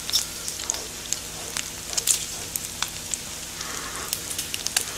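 Pork belly sizzling on a hot flat grill pan: a steady hiss with frequent small pops and crackles of spitting fat.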